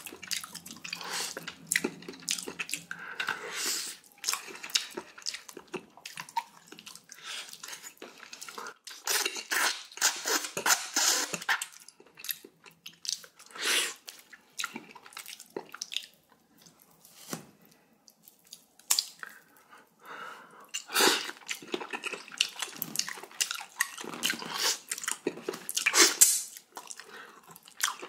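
A person eating pork-bone galbitang and cubed radish kimchi close to the microphone: wet chewing and slurping in irregular bursts, with short pauses between mouthfuls.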